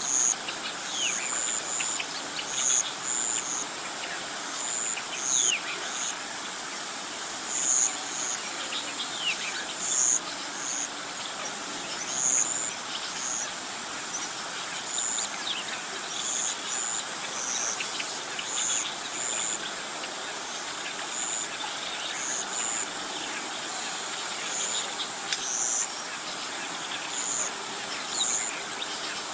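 Outdoor insect and bird chorus: short high chirps repeating about once a second over a steady high hiss, with a few thin descending bird whistles in the first half.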